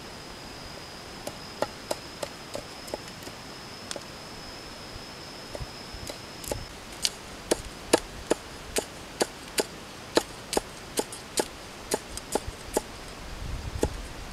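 Cleaver chopping chillies and garlic on a wooden block. Scattered knocks at first, then from about halfway a steady run of sharp chops, roughly two a second. A thin, high, steady tone sounds through the first half and stops about halfway.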